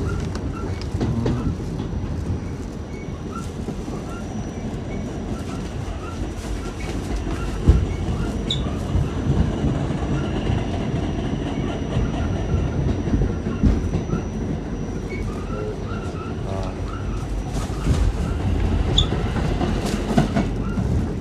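R46 subway car running along the track, heard from inside: a steady low rumble of wheels on rail with scattered clicks and knocks from the rail joints, one sharp knock about eight seconds in, and a thin high tone throughout.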